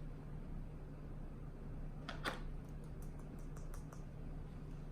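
A few faint, short clicks and taps of plastic sand tools and moulds as kinetic sand is scooped and packed, over a steady low hum.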